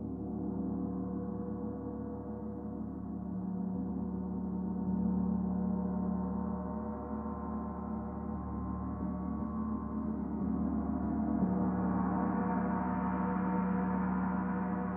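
Paiste Saturn planetary gong, tuned to D at 147.85 Hz, played continuously so that it sustains a shimmering wash of many steady overtones. The sound swells about five seconds in, and again near the end as the higher overtones build.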